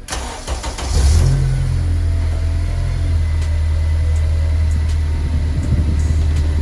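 A car engine running steadily with a loud, low hum; it picks up about a second in and then holds an even note.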